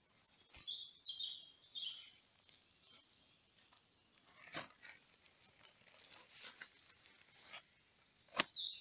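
Small birds chirping a few times, with the rustle and knocks of gear being pulled out of a backpack and set down: stuff sacks and packets. The sharpest knock comes near the end, under a last chirp.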